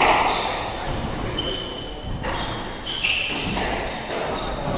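A squash ball struck by rackets and hitting the walls of the court, each hit a sharp smack that rings in the court. There are hits near the start, at about two seconds and at three seconds, with brief high squeaks from shoes on the wooden floor between them.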